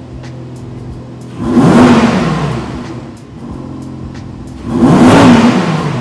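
Audi R8 GT's 5.2-litre V10 idling while stationary and revved twice. Each blip rises quickly and falls back to idle. The first comes about a second and a half in, the second near the end.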